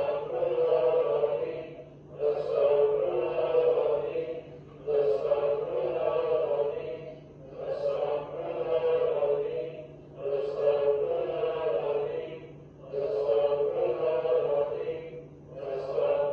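A group of voices chanting dhikr, the recitation of the names of God, in unison: one phrase repeated about every two and a half seconds with a short breath between. A steady low hum runs underneath.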